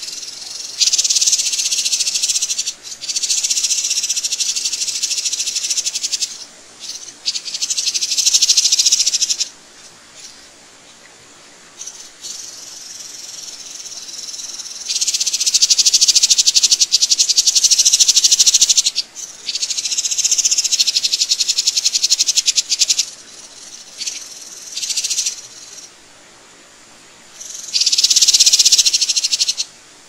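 Loud, high-pitched rapid buzzing trill, coming in repeated bursts of one to four seconds with short gaps between them.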